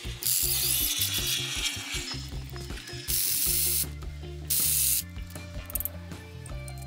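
Cordless drill-driver working on the bolts of a car differential housing, run in three short bursts, the first the longest.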